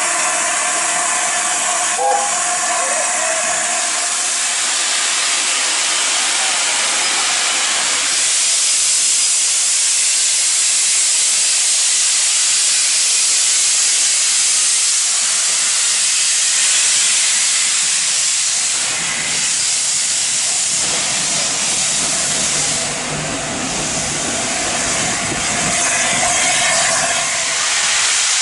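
LNER A4 Pacific steam locomotive 60007 Sir Nigel Gresley letting off steam: a loud, steady hiss that holds for the whole stretch, dipping briefly around the middle and again near the end.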